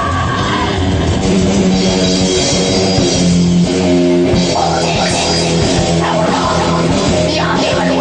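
Crust punk / grind metal band recording: distorted electric guitar chords over a drum kit, the guitar changing chords about halfway through.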